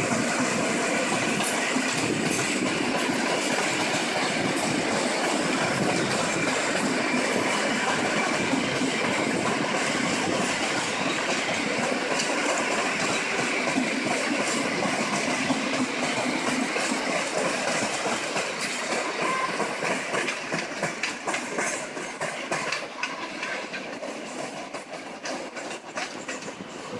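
A passenger train running past: a steady rumble and hiss of the cars, with wheels clicking over rail joints. The clicks grow more distinct in the last several seconds as the sound fades away.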